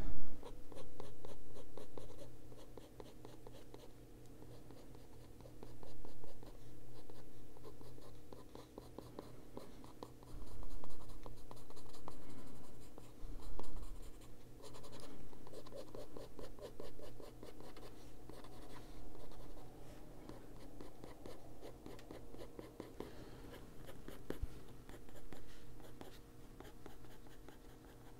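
Coloured pencil scratching on paper in quick repeated strokes, coming in swells of a second or two as lines are drawn and shaded in: a Derwent Drawing Pencil.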